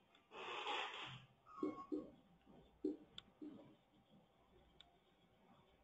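A man breathing out long and close to the microphone, followed by a few faint short murmurs and two light clicks.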